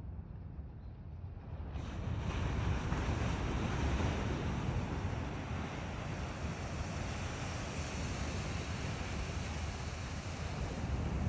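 Wind rumbling on the microphone over a steady rushing noise like surf, growing fuller and louder about two seconds in.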